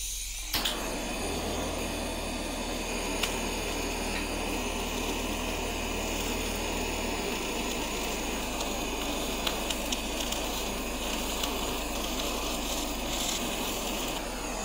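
Handheld kitchen blowtorch flame hissing steadily as it sears the mentai mayo topping on salmon sushi. It catches with a click about half a second in.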